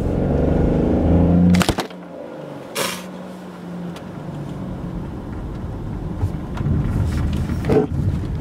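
Car cabin drone of engine and road rumble while driving, broken by a sharp click just under two seconds in, after which the low rumble drops away; a brief rush of noise follows about a second later, and the low drone gradually builds back.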